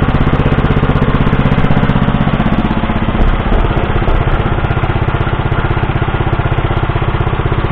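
Single-cylinder four-stroke Lifan 6.5 hp engine of an Oka walk-behind tractor running steadily, with the tractor's sheet-metal fenders and handlebar rattling from its vibration. The owner puts the shaking down to a flimsy factory engine mounting plate.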